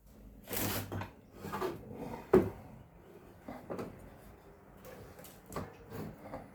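Wooden knocks, scrapes and rustles of a 2x4 board being handled, with one sharp knock about two and a half seconds in. No saw runs.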